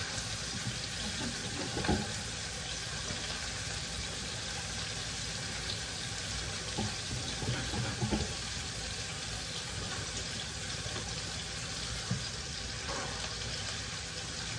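Kitchen tap running as hands are washed at the sink, over the steady sizzle of stuffed chicken breasts searing in hot avocado oil in a skillet, with a couple of light knocks.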